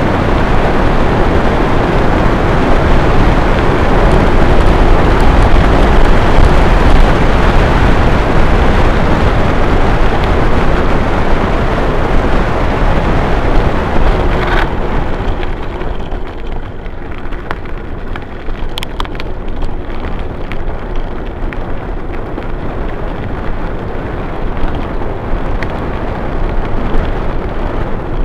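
Heavy wind buffeting on an action camera's microphone during a fast bicycle ride, mixed with tyre rumble on asphalt. It drops off suddenly about halfway through, and a few sharp clicks follow.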